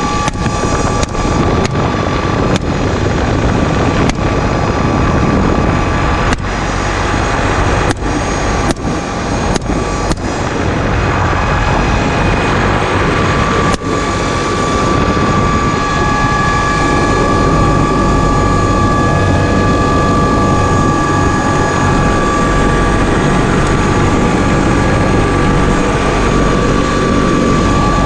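Helicopter running steadily: a dense turbine and rotor noise with a constant high whine. In the first half it is broken by a quick string of short, sharp events.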